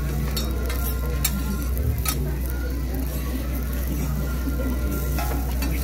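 Okonomiyaki sizzling on a flat-top griddle while metal spatulas scrape and click against the steel plate, with a few sharp clicks in the first two seconds. A steady low hum runs underneath.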